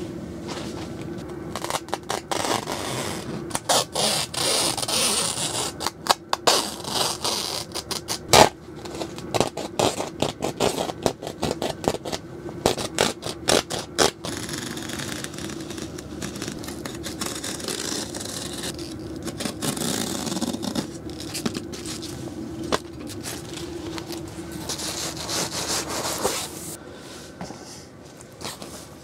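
Clanks, knocks and scrapes of a portable tent wood stove and its metal chimney pipe being handled and fitted, with a dense run of sharp metal knocks in the first half, then scraping and rustling of tent fabric at the chimney opening. A steady low hum runs underneath and fades near the end.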